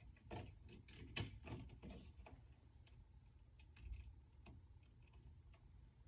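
Faint, scattered small clicks and taps from a thermostat and its wires being handled during installation, busiest in the first couple of seconds, with a soft low thump about four seconds in.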